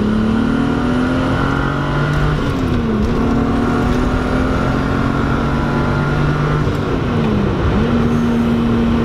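Golf 2's turbocharged VR6 engine pulling hard under acceleration, heard from inside the cabin. Its note drops sharply twice, about two and a half seconds in and again near the end, as the driver changes up a gear.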